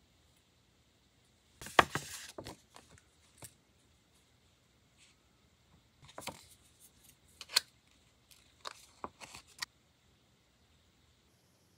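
Small clicks, taps and rustles of nail-art stickers being handled and picked up with a thin picker tool. The sounds come in three short clusters, the sharpest click about two seconds in, with near silence between them.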